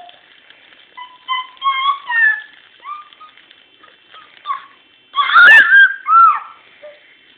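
A baby babbling and cooing in short high-pitched bursts, rising to a loud, longer squeal about five seconds in.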